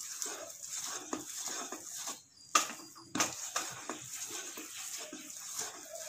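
Spatula stirring and folding thick, wet semolina in a nonstick pan: repeated scraping strokes against the pan, with a sharp knock about two and a half seconds in and another just over half a second later. The semolina has been cooked in water and is stirred well to keep lumps from forming.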